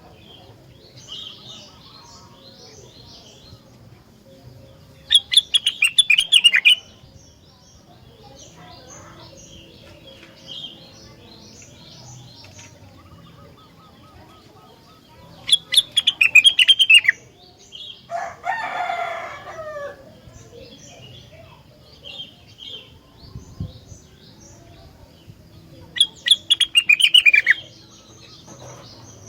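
Rengganis songbird singing: three loud bursts of rapid, high chattering notes, about ten seconds apart, over steady softer chirping, with a harsher, lower call between the second and third bursts.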